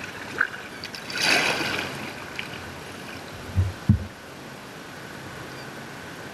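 Sea water splashing and gurgling around a paddled skin-on-frame kayak, with one loud splash about a second in and two low thumps just before four seconds.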